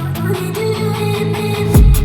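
Background music: a guitar-driven rock/hip-hop track with strummed guitar and bass, a heavy drum hit near the end.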